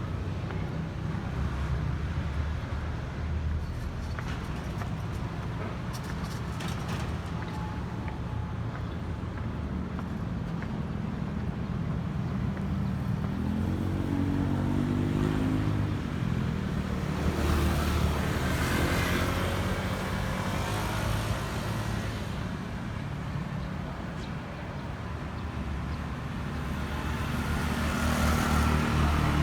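Road traffic: a steady low rumble of motor vehicles, with an engine note rising and falling as one passes about halfway through, and traffic growing louder near the end.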